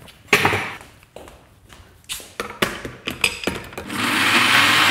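Knocks and clicks of things being handled and set down, then about four seconds in a stand mixer's blender attachment starts up and runs loud and steady, blending a herb sauce.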